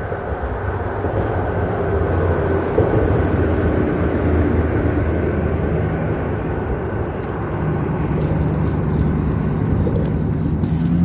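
A steady low engine drone, building in level over the first couple of seconds.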